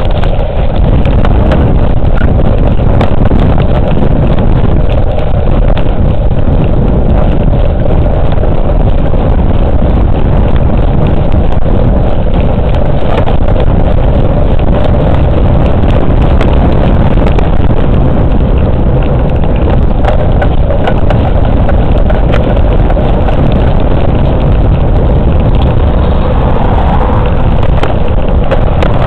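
Heavy, steady wind rumble and rolling noise on a camera microphone while riding a bicycle along an asphalt path, with small rattling clicks throughout.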